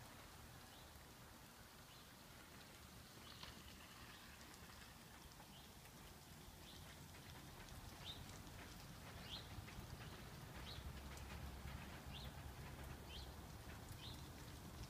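Faint small-bird chirps, short high notes repeating about once a second, over a low, quiet rumble of outdoor background.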